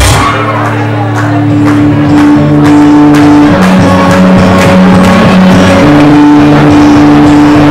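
Loud dance music for a crew's routine: held synth notes that shift pitch every few seconds over a steady beat, with an abrupt change in the mix at the very start.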